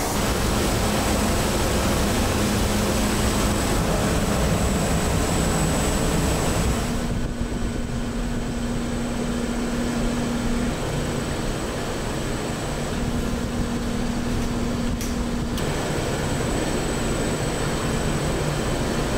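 Steady factory machinery noise from a colour steel-sheet printing line: a constant hum under a thin, high, steady whine. The noise turns duller about seven seconds in and brightens again near fifteen seconds.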